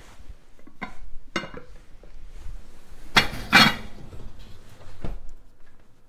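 A lidded stoneware bread baker being loaded into an oven: a few metallic clanks with a brief ring from the oven rack and door, then a louder double clatter about three seconds in as the pot goes in and the door shuts, and a last knock near the end.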